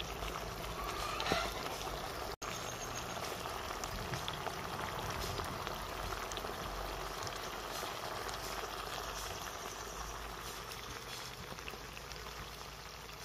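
A pot of tinned mackerel stew boiling hard in a black cast-iron pot over a fire: a steady bubbling hiss that fades a little toward the end.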